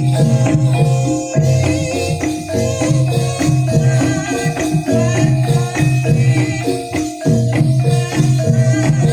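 Javanese jaranan gamelan music: struck metal-keyed instruments play a fast, repeating figure over jingling percussion and a low sustained tone, with brief breaks in the pattern about a second in and again near the end.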